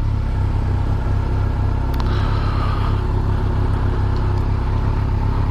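Kawasaki GTR1400's inline-four engine idling steadily while the bike is stopped, with a single light click about two seconds in.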